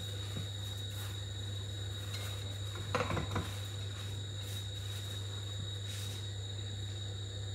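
Steady low electrical hum with a thin high whine over it, and soft rustling as hands press chicken pieces into dry flour breading, most clearly about three seconds in.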